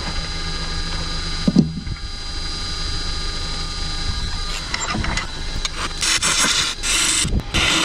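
Wood lathe running with a steady motor whine, spinning a live oak blank; a single knock about a second and a half in. From about five seconds a turning gouge bites into the spinning oak in repeated bursts of scraping cut noise, loudest near the end.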